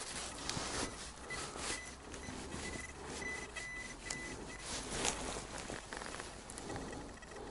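XP Deus metal detector giving short, faint beeps on one high tone, on and off, over rustling and crackling with a few sharp clicks, the strongest about five seconds in.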